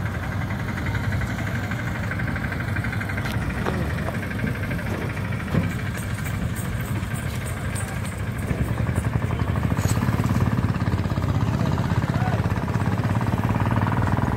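A motor engine running steadily at low revs, getting louder about two-thirds of the way through.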